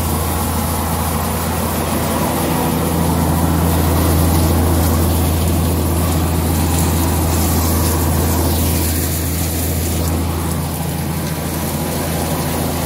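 Maan thresher running steadily while threshing soybeans: a constant low engine hum with a broad rushing noise over it.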